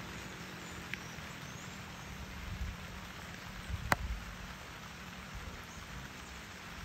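Outdoor background of steady hiss and low rumble, with a couple of faint ticks and one sharp click about four seconds in.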